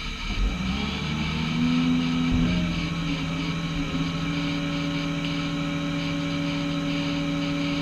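Hydraulic excavators' diesel engines running in a steady drone. The drone steps up in pitch between one and three seconds in, then holds level.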